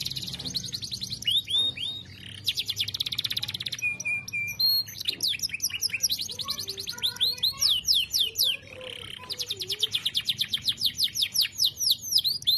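Domestic canary singing long rolling phrases: very fast trills alternate with runs of quicker, downward-sweeping whistled notes, broken by short pauses.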